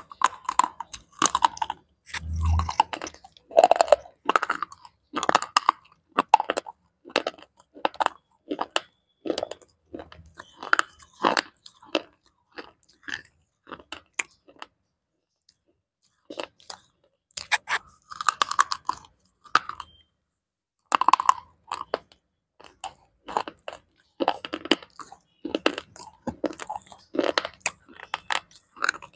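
Slate pencils being bitten and chewed close to the microphone: runs of sharp, dry crunches, with a pause of about two seconds halfway through before the crunching starts again.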